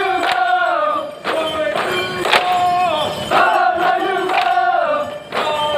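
A group of voices chanting in unison during a Nocte bamboo dance. They hold long notes that fall away at the end of each phrase, and there are sharp knocks about once a second as the bamboo poles are struck together.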